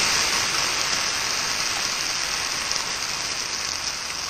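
Octopus and canned peeled tomatoes sizzling steadily in hot olive oil in a frying pan, the sizzle easing slightly.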